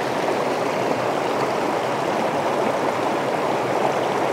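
Small stream running over a shallow, rocky riffle: a steady, even rush of water.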